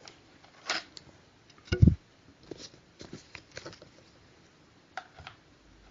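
Handling noises close to the microphone: a few soft clicks and ticks, with one louder low thump about two seconds in.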